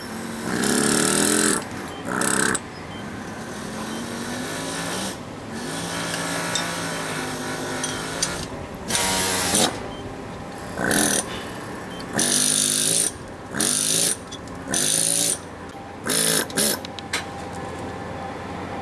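Pneumatic carving hammer chiselling stone. It runs as a steady buzzing chatter, with repeated louder bursts from a fraction of a second to about two seconds long as the tool is pushed harder into the stone.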